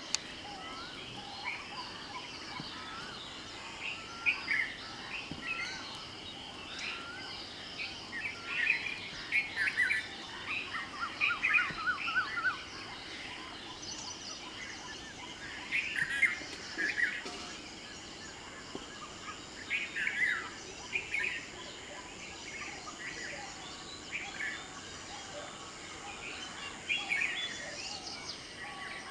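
Several birds chirping and singing in an early-morning chorus: overlapping short calls and phrases, with a quick trill of repeated notes partway through. A faint, steady, high, thin tone sits under the birds for much of the time.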